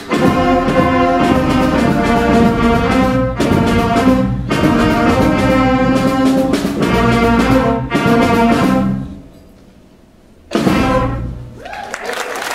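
Sixth-grade concert band of saxophones, brass and drums playing, breaking off about nine seconds in for a short pause, then one final loud chord that dies away. Audience applause starts near the end.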